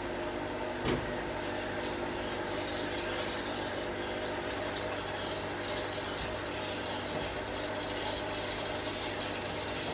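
Tomato sauce and pasta water bubbling on the stovetop, with a steady hum underneath and scattered small pops. A single knock about a second in.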